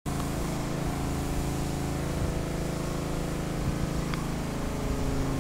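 A steady mechanical drone from an engine or motor running at constant speed, with one short high chirp about four seconds in.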